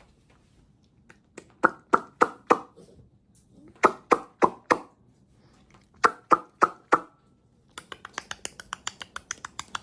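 Knocking on a hard, hollow-sounding surface in three sets of four evenly spaced knocks, then a quicker run of lighter taps near the end.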